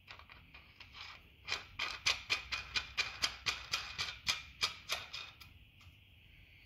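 A quick, even run of light metallic clicks, about five a second for roughly four seconds, as a large nut is spun by hand onto the threaded bushing of a golf cart contact board.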